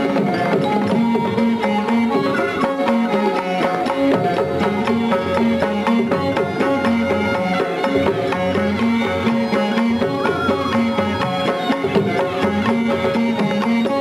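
Indian-style ensemble music: hand drums keep a steady rhythm under a melody that steps up and down over a held drone.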